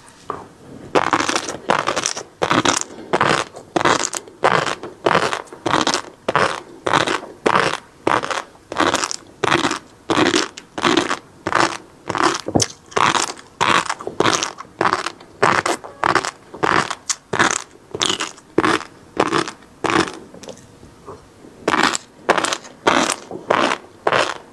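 Close-miked chewing of flying fish roe (tobiko): crunchy crackling pops in a steady rhythm of nearly two chews a second, with a short pause about twenty seconds in.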